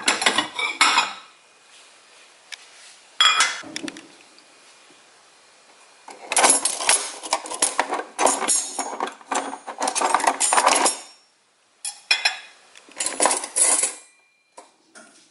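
White ceramic plate clinking as it is lifted off a stack in a cupboard, then stainless-steel cutlery rattling and clinking as a hand rummages through a drawer for a knife and fork. The clinks come in short clusters, with a long busy stretch of rattling in the middle.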